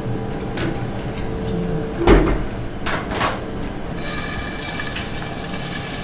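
A few knocks and clatters over a steady hum, the loudest about two seconds in; about four seconds in, thin-sliced beef slides into a hot oiled frying pan and starts to sizzle, a steady hiss.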